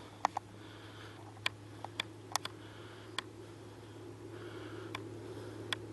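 Quiet handling noise from a handheld camcorder: a steady low hum under about eight to ten small sharp clicks scattered through, with faint soft breathing.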